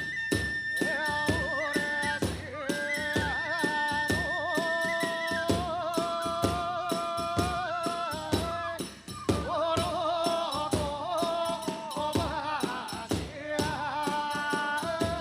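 Kagura hayashi music: a bamboo flute melody, holding a high note at first and then wavering lower, over a steady fast beat of drums and small hand cymbals. The music dips briefly about nine seconds in.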